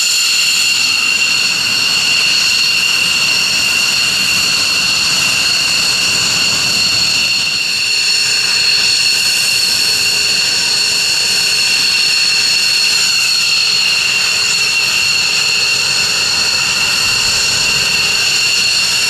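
F-15 fighter jet engines running at ground idle: a loud, steady high-pitched whine made of several held tones over an even rushing hiss.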